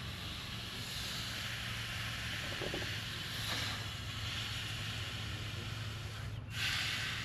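Brazing torch flame hissing steadily over a low steady hum, with a short louder rush of hiss near the end.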